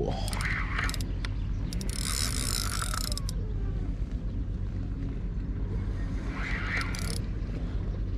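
Shimano Beastmaster 10000 spinning reel being wound in on a surf rod, its gears whirring in three bursts of cranking as a hooked fish is brought in. The longest and loudest burst comes about two seconds in.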